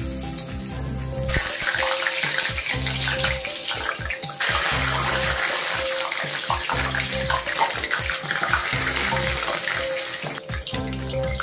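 Water running in a steady rushing stream, starting about a second in and stopping near the end, over background music with a repeating tune.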